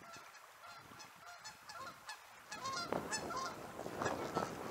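Geese honking over and over, the calls growing louder from about halfway through as the birds fly closer.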